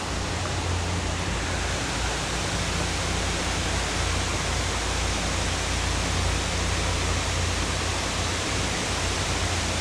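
Steady rush of river water flowing at a dam: an even, unbroken noise with a deep rumble underneath.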